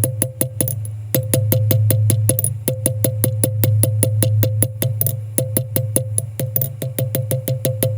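Background music: a fast electronic beat of clicking percussion over a steady bass note.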